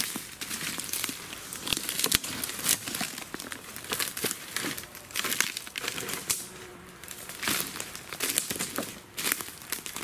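Irregular rustling and crackling, a rapid run of short noisy crackles with no steady rhythm.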